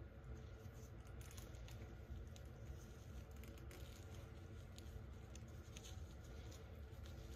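Faint rustling and scattered light taps of doll clothes and small plastic accessories being handled, over a low steady room hum.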